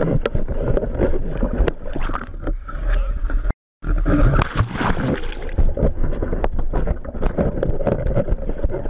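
Water rushing and gurgling around a pole-mounted camera moving through the sea, with frequent knocks and rattles of the pole. The sound cuts out briefly about three and a half seconds in.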